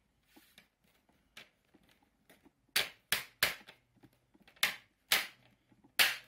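Plastic screen bezel of a Lenovo ThinkPad T540p being pressed onto the display lid, its clips snapping into place as a series of sharp clicks, a few faint ones first and about six loud ones in the second half.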